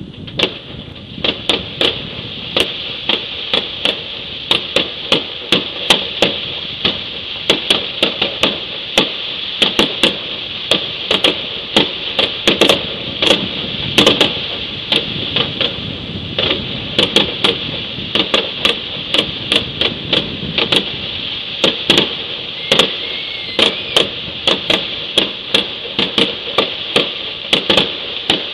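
Fireworks going off in a rapid, irregular series of sharp bangs and pops, about two or three a second, over a steady hiss.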